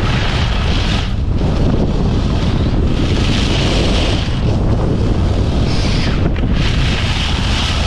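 Wind buffeting the action-camera microphone while skiing downhill, a loud steady rumble, with a hiss of skis on groomed snow that swells three times, about every three seconds, with the turns.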